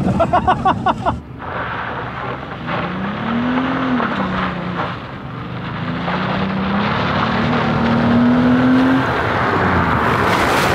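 Plymouth Grand Voyager minivan's engine revving hard as the van accelerates, its pitch climbing, easing off around four seconds in, then climbing steadily again before dropping near the end, over steady road noise. A short burst of laughter comes in the first second.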